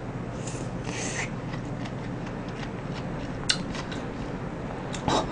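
Soft eating sounds from a mouthful of bingsu (Korean shaved-ice dessert with sweet red beans) taken off a wooden spoon: a couple of short slurping, breathy noises about a second in and a faint click later, over a steady background hiss.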